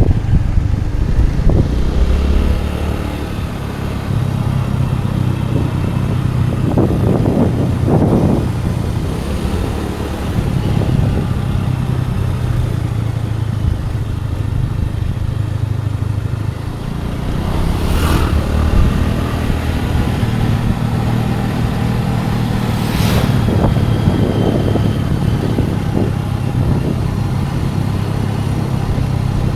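Scooter engine running steadily under way, with wind and road noise, its pitch and level rising and falling a little with the throttle. Two brief sharp knocks stand out, about two-thirds of the way through and again a few seconds later.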